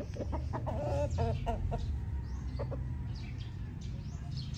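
Backyard chickens clucking: a run of short clucks in the first second and a half, then fainter short high chirps over a steady low rumble.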